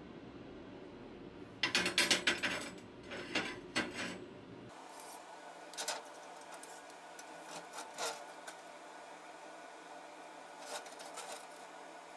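Steel square tubing and hand tools handled on a steel welding table: a burst of sharp metal clatter and clicks about two seconds in, more a second later, then scattered light clicks and taps as a tape measure is worked over the plate.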